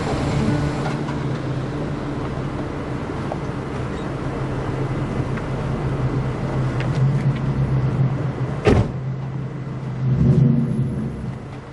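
A car engine idling with a steady low hum. About three-quarters of the way through there is a single sharp click, and a short swell in the noise follows near the end.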